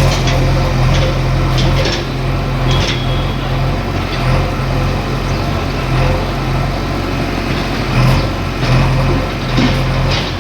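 Diesel engine of a heavy demolition machine running steadily, with scattered knocks and clatter of debris.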